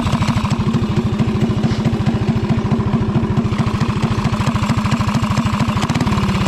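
Small single-cylinder Briggs & Stratton go-kart engine idling with a steady, even putting beat and no change in revs.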